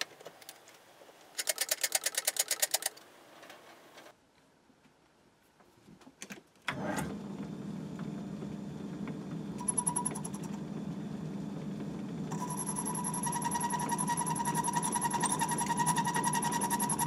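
A short rapid clatter of metal parts being set up, then a Myford ML7 lathe starts about seven seconds in and runs steadily with a low hum, boring out a steel cylinder block with a boring bar. About halfway through a steady high whine joins the running sound as the cut goes on.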